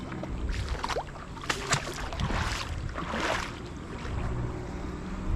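Sea-Doo personal watercraft engine running at idle, a steady low hum. Two brief hissing swells come about two and three seconds in.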